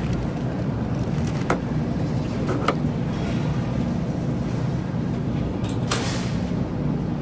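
Steady low machine hum, with a couple of sharp clicks early in and a brief swishing rustle about six seconds in.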